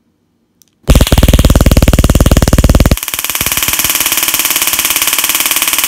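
Taser X26 stun gun arcing in drive-stun mode with its cartridge removed, pressed against an egg: a loud, rapid crackle of electric snaps that starts about a second in and lasts about five seconds, losing much of its low end about two seconds after it starts.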